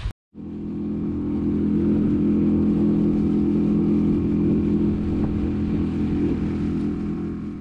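Small outboard motor running at a steady speed, pushing the boat along. The hum comes in just after the start and fades away near the end.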